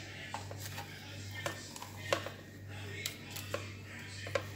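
Scattered sharp clicks and taps, about seven, the loudest about two seconds in, as hands rub seasoning into a whole snapper on a plate, over a steady low hum.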